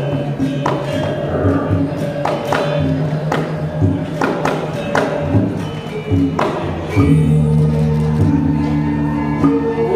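Balinese gamelan music: ringing metallophone notes held over frequent sharp percussive strikes, with a louder, steady low layer of notes coming in about seven seconds in.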